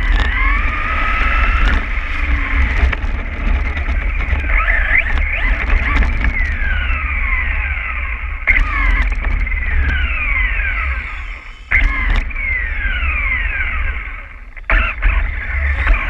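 Electric motor and gear whine of a Losi XXX-SCT short course RC truck, heard from a camera mounted on the truck. The whine rises with bursts of throttle and falls away as the truck coasts, several times over, above a steady low rumble from the chassis and tyres.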